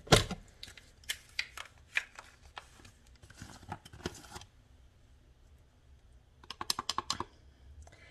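Hard plastic clicks and knocks as a NutriBullet blender cup and its blade base are handled with the motor off. There is one loud knock at the start, then scattered taps, and a quick run of rattling clicks near the end.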